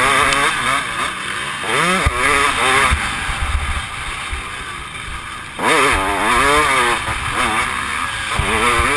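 Dirt bike engine revving hard and backing off over and over as it is ridden around a motocross track, heard from the rider's helmet. The revs drop away for a couple of seconds in the middle, then climb sharply again about five and a half seconds in.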